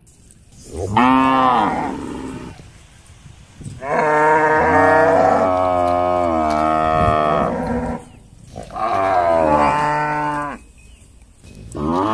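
Cattle mooing for food: three loud calls, the first short and arching up and down in pitch, the second long at about four seconds, the third about two seconds, with another starting at the very end.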